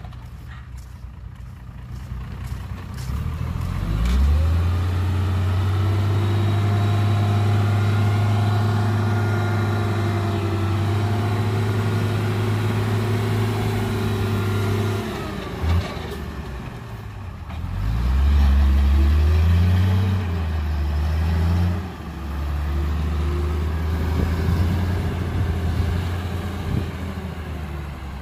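Heavy diesel engine of earthmoving machinery revving up about four seconds in and holding high revs, dropping back about halfway through, revving again and easing off, then running on steadily.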